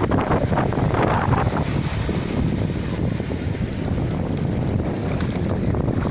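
Sea waves washing onto the shore, one surging in during the first second or so before settling into a steady wash, with wind rumbling on the microphone.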